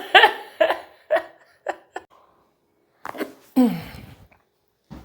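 A person laughing in short bursts, then after a pause a sudden sound followed by a voice sliding down in pitch.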